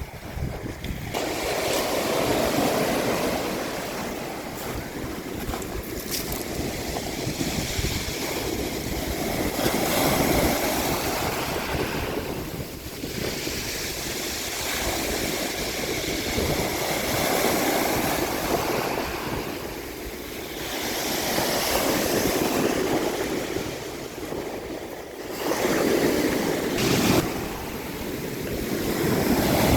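Sea surf washing in, a rushing noise that swells and fades every few seconds, with wind on the microphone. A brief sharp noise comes a little before the end.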